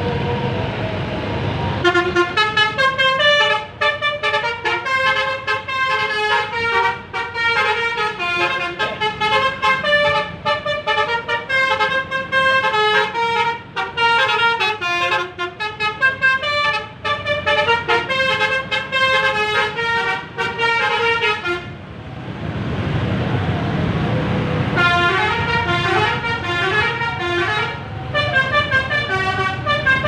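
Basuri V3 telolet horn on a tour bus playing a fast tune of many short, changing horn notes. The tune stops about two-thirds through, leaving a low rumble of engines for a few seconds, then starts again.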